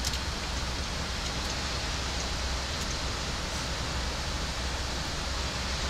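Steady cockpit noise of a Boeing 737 MAX 8 in the climb: an even rush of air with a low hum beneath it. A few faint ticks sound over it.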